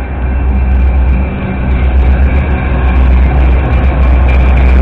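Metra diesel commuter train pulling into a station: a heavy locomotive engine rumble that grows louder as it nears, with wheel and rail clatter building toward the end.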